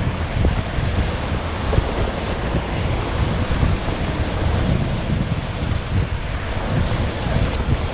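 Wind buffeting a GoPro Hero5's built-in microphone: a loud, uneven rumble with a steady hiss of outdoor noise behind it.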